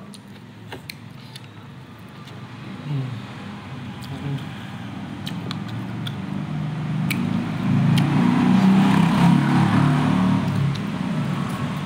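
A motor vehicle's engine rumble, growing louder to a peak about eight seconds in and then easing off, with a few short clicks over it.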